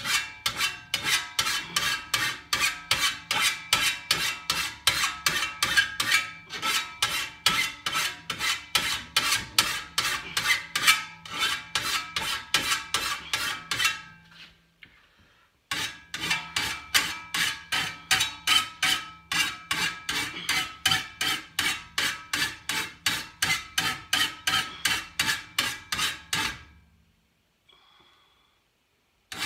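Hand file being stroked across a cutter tooth of a Husqvarna 525RX brushcutter's steel grass blade clamped in a bench vise, sharpening it: an even run of rasping strokes, about three a second, each one setting the blade ringing. The filing pauses for about a second and a half midway and stops shortly before the end.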